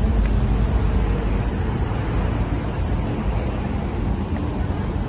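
Steady road traffic noise: a continuous low rumble of cars on the street alongside.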